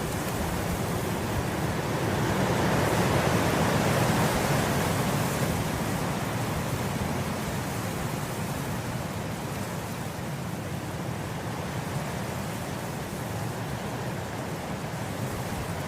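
Wind blowing through grass, a steady rushing that swells into a stronger gust about three seconds in and then eases back.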